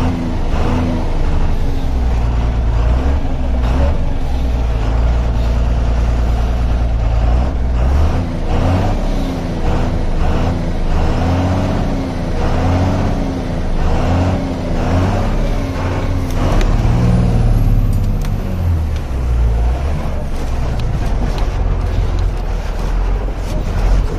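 Laden truck's diesel engine running under load on a rough dirt road, with frequent knocks and rattles from the truck jolting over the bumps.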